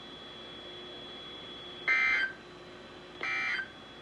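NOAA Weather Radio SAME end-of-message data bursts: two short bursts of warbling digital tones, about 1.3 s apart, the first about two seconds in, signalling the end of the alert message. A faint steady hiss with a thin high tone runs underneath.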